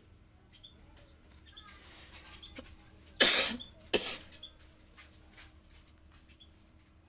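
A person coughs twice, a little over half a second apart, about three seconds in. Faint ticks of handling can be heard around them.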